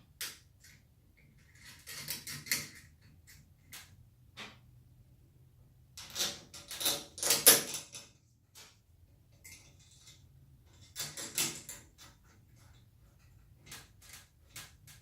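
Hands handling plastic hose and fittings, with scattered clicks and three short bursts of clattering and rustling about two, six to eight, and eleven seconds in.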